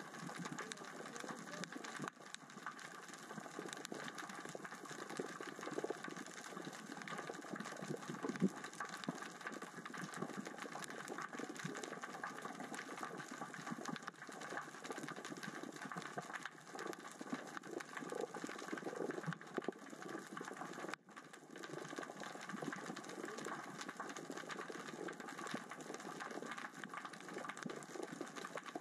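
Underwater ambience of small rocks rolling and clattering across the sea floor in the current and tide: a steady, dense crackle of tiny clicks, dipping briefly about three-quarters of the way through.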